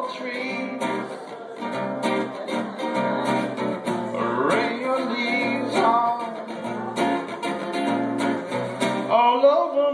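Live acoustic guitar strummed in a steady rhythm under a man's singing voice. The strumming stops about nine seconds in while the voice carries on for a moment.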